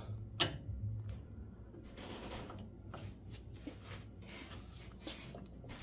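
Light handling noises: a single sharp click about half a second in, then faint rustling and small scattered knocks.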